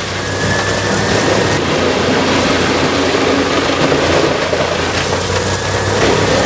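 Heavy machinery engine running steadily under load, a loud continuous rushing drone with a low engine hum.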